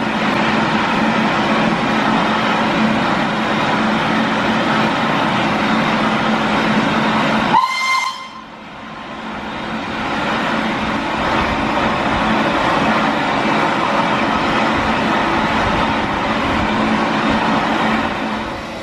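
SR S15 class 4-6-0 steam locomotive working a train away, heard from an open carriage window: a steady loud hiss and rumble of steam. About eight seconds in, a brief high note sounds over it; the noise then drops and builds back up.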